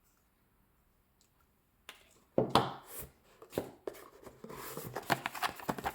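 Unboxing packaging being handled: after about two seconds of near silence, a few sharp knocks and rustles begin, thickening into steady crinkling near the end.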